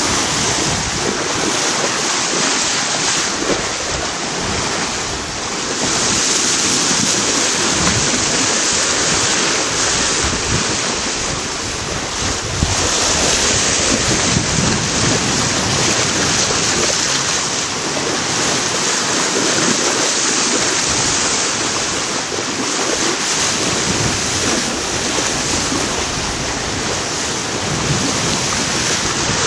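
Wind buffeting the microphone and water rushing and splashing along the hull of a racing sailboat under way at sea: a loud, steady hiss that swells and eases every few seconds.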